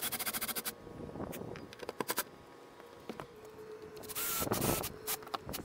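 Cordless drill driving wood screws through aluminium Z-bracket feet into an RV roof, in short bursts. A rapid run of clicks comes at the start, a brief burst about two seconds in, and a louder whirring run just after four seconds, with more clicks near the end.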